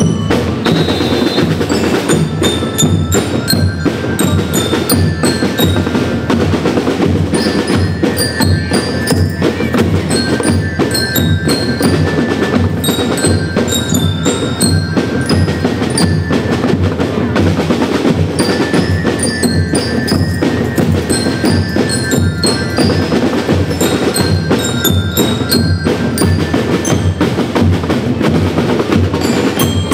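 School rhythm band playing a tune: bell lyres ring out the melody over snare and bass drums keeping a steady, dense beat.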